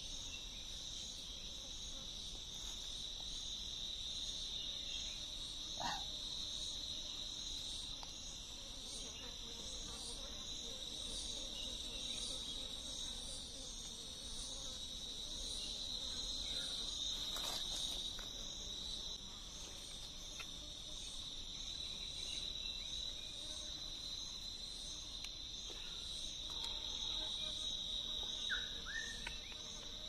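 Steady high-pitched chorus of forest insects, with a couple of faint knocks about six and eighteen seconds in.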